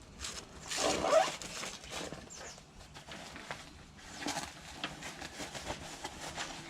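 Handling noise from a fabric tool roll pouch: rustling and scraping of the bag's material, with a louder scrape about a second in and light clicks of tools being moved.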